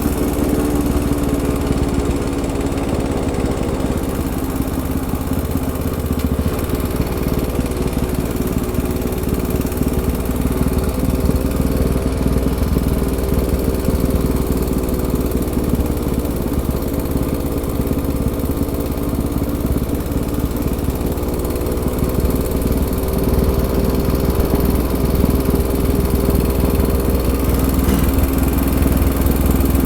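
ATV engine running steadily under way, its pitch rising and falling slightly with the throttle, over a constant low rumble.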